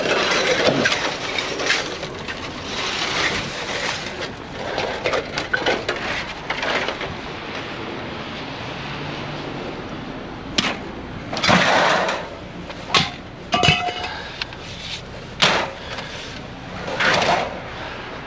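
Scrap metal being handled: clattering and rattling for the first several seconds, then a string of separate metal clanks and bangs in the second half, one of them ringing briefly.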